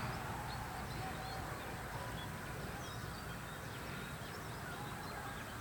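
Birds calling in open farmland: many short, high chirps scattered throughout, with a few brief lower notes, over a steady low background rumble.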